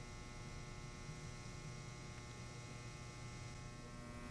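Faint, steady electrical mains hum with many overtones and nothing else: room tone.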